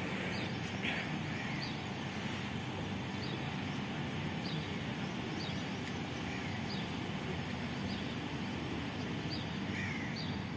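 Birds giving short high chirps, about one a second, over a steady hum of street traffic.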